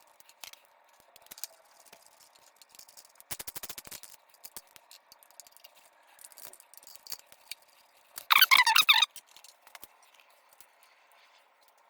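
Scattered clicks and a brief rattle of hands working on an electric pallet jack, then one short, loud warbling whine a little past the middle, from the machine.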